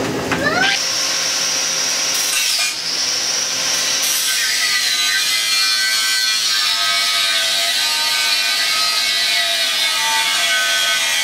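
Electric angle grinder spinning up with a rising whine about half a second in, then cutting into the steel shell of a 7-gallon air tank; the high whine drops in pitch around four seconds in as the disc bites into the steel under load, over a steady grating hiss.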